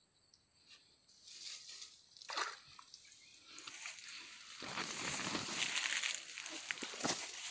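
Light sloshing and splashing in shallow ditch water, then rustling and crunching of grass and dry leaves, which grows louder and denser about halfway through.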